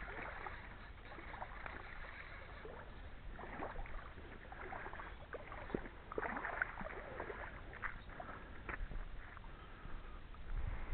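Faint sloshing and splashing of shallow lake water, with scattered irregular small clicks and splashes over a low steady rumble, while a trout is played on the rod.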